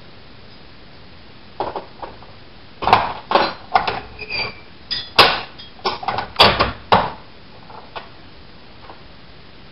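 Hand-forged bolt-work of a Napoleonic-era trick-lock safe being worked by hand: metal clicks and clanks as its levers and bolts shift. Two light clicks come first, then a quick run of about a dozen clunks over some four seconds, one with a brief ringing note.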